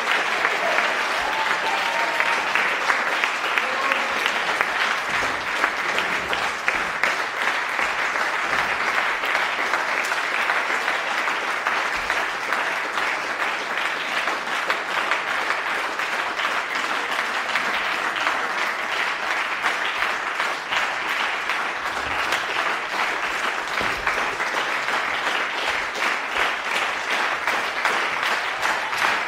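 Small crowd of spectators applauding steadily, dense hand clapping with a few voices mixed in.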